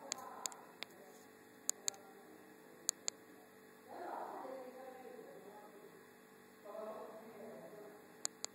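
Steady electrical hum and hiss, broken by scattered sharp clicks and by two short, wavering voice-like sounds, about four and seven seconds in.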